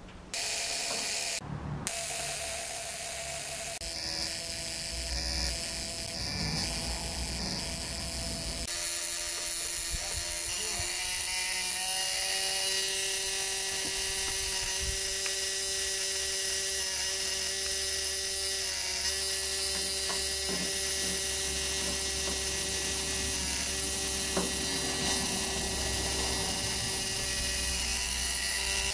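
Ford Model T trembler ignition coil buzzing steadily as its vibrator points fire sparks across a static spark gap. Its pitch shifts about nine seconds in and again near eleven seconds as the point adjustment is turned to draw a longer spark.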